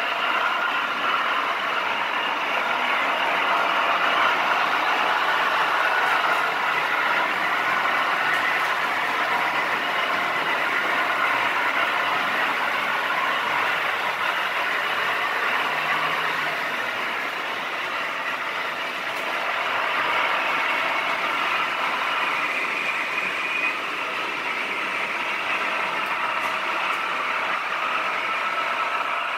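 Märklin HO model trains running around the layout: a steady rolling rattle of metal wheels on the rails with the hum of the locomotive motors, easing slightly for a moment past the middle.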